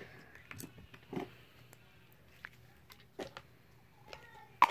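Store-bought blue Flarp noise putty being squeezed and poked, giving faint scattered squelches and small clicks, with a sharper click near the end.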